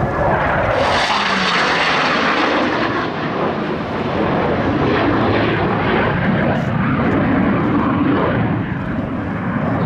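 Twin jet engines of a Blue Angels F/A-18C Hornet as it flies past and away. The noise swells about a second in and stays loud, with a tone that drops in pitch as the jet goes by.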